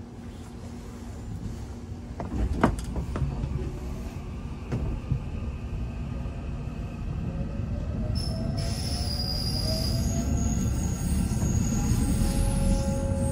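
Seoul Line 1 electric subway train heard from inside the car as it pulls away from the station. A few sharp knocks come about two and a half seconds in, then the running noise builds as it gathers speed. Rising motor whine tones and high-pitched squealing tones come in over the second half.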